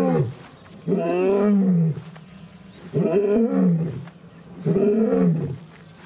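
Male African lion roaring in a territorial bout: a series of long, deep calls about every two seconds, each rising and then falling in pitch.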